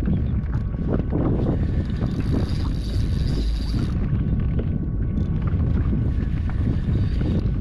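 Wind buffeting the microphone over water noise around a kayak on the lake, a steady rumbling rush with no break.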